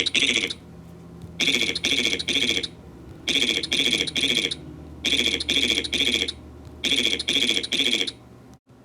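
A shouted 'yeet' voice clip played over and over very fast, in quick groups of three with a new group about every two seconds. A low steady hum sits between the groups.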